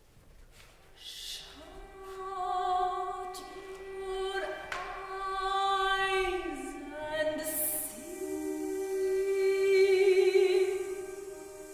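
Soprano singing a slow, contemporary art-song line: long held notes with vibrato, several of them reached by upward slides. It starts almost silent and swells, with a brief hiss about two-thirds through.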